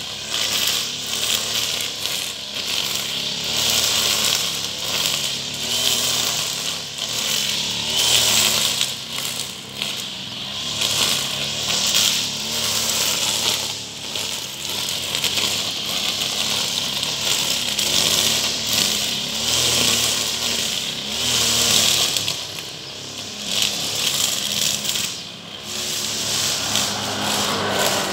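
Backpack brush cutter's small engine running steadily while the cutting head sweeps through grass and leaf litter on stony ground. Its loudness swells and dips every second or two as the head is swung back and forth.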